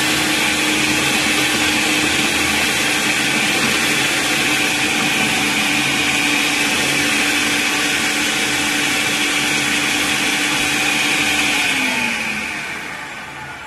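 Electric food processor running at speed, its blade chopping green chillies, onion and coriander in the bowl. About twelve seconds in it is switched off and the motor winds down, its pitch falling as it slows.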